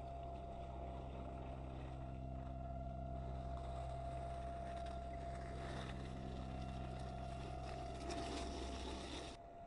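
A 1/10-scale RC crawler on an RC4WD Trail Finder chassis drives through icy slush with a steady motor and drivetrain hum and whine. As it passes right beside the camera about eight seconds in, the crunch and splash of its tyres grows louder. The sound cuts off suddenly near the end.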